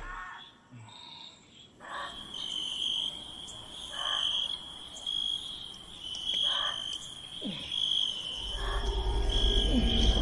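Night insect chorus: a steady, high cricket-like trill that pulses on and off, with a shorter, lower call repeating about every two seconds. A low rumbling drone swells in near the end.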